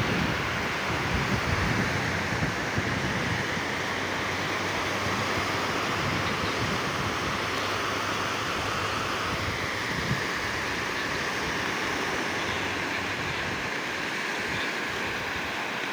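Small sea waves breaking and washing up a sandy shore and against a concrete breakwater: a steady surf hiss, with wind gusting on the microphone in the first few seconds.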